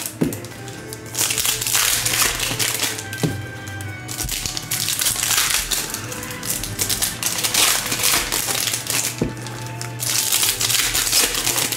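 Foil trading-card pack wrappers being torn open and crinkled while cards are handled, in several crackling bursts, with background music underneath.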